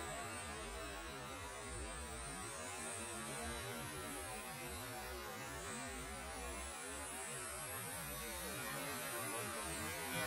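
Electric 1:10 RC touring cars racing, the thin high whine of their brushless motors rising and falling as they accelerate and brake, over a steady low hum.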